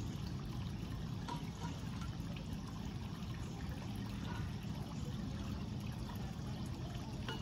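Steady rushing background noise, strongest in the low range, with a few faint short high sounds scattered through it and no single event standing out.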